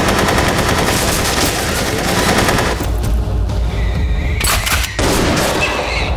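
Rapid automatic gunfire for about three seconds, then two more shots about a second and a half later, over music with a steady beat.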